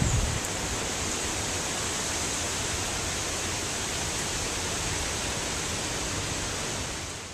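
Steady hiss of heavy hurricane rain falling on a flooded lawn, with a brief low thump at the very start. It fades out at the end.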